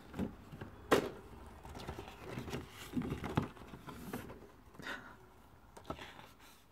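Paper pages of a large wire-bound calendar being handled and turned: rustling and scraping, with one sharp click about a second in.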